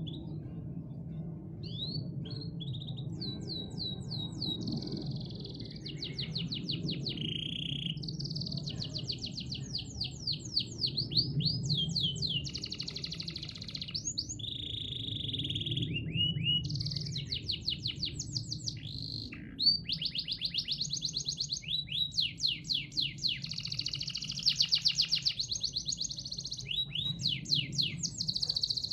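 Domestic canary singing a long, rapid song: fast trills of quickly repeated sweeping notes and rolling phrases, with short breaks between phrases.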